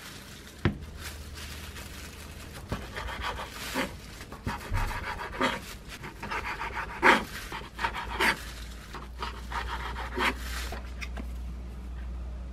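Chef's knife cutting a gimbap roll on a wooden cutting board: a sharp tap of the blade tip marking the cut about a second in, then several gentle sawing strokes that crackle through the crisp seaweed wrap, each ending in a light knock of the blade on the board.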